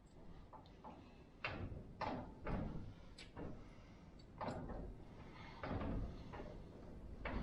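Pliers gripping and twisting the pre-cut suitcase weights of an Ertl 8RT toy tractor, making a run of sharp clicks and cracks as the slices break off, about ten in all at uneven intervals.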